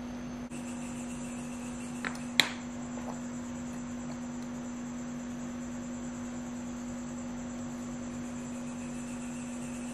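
Steady low electrical hum with a single pitch, broken by two sharp clicks a little over two seconds in.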